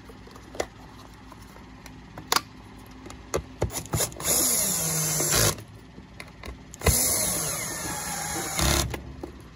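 A few light clicks and knocks of plastic parts being fitted, then a cordless power screwdriver runs twice, driving screws into the vacuum's plastic handle housing. Its pitch sags during each run.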